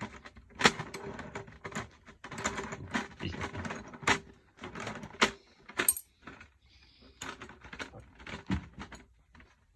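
Irregular metallic clicks and rattles of snare drum hardware being worked during a head replacement, with a faint steady ring from the drum underneath. The clicks thin out and grow quieter after about six seconds.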